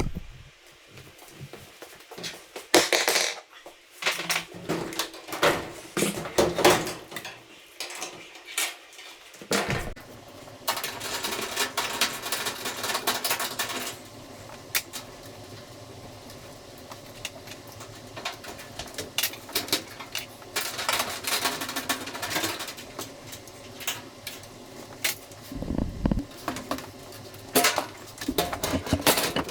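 Irregular metallic clinks and knocks, with a steady low hum coming in under them about a third of the way through.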